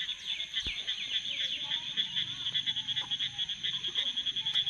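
Frogs calling after rain: a steady, fast-pulsing high chorus, with several quick falling chirps in the first second and a half.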